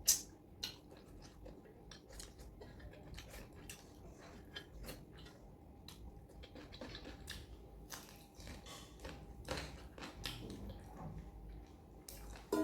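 A person eating chicken curry with the hands close to the microphone: many small, irregular chewing and mouth clicks, with one sharper click at the start.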